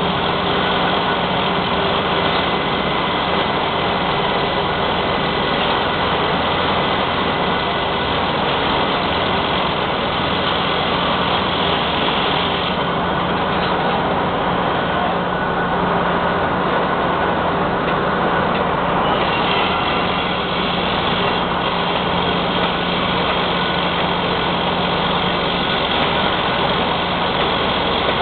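Mobile crane's diesel engine running steadily while it hoists a steel column, a continuous low hum.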